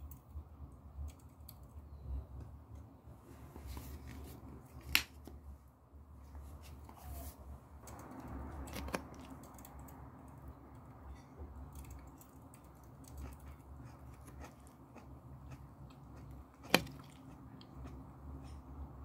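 Fork clinking against a plate while spearing salad: sparse small clicks, with two sharp clicks about five seconds in and near the end, over a low steady hum.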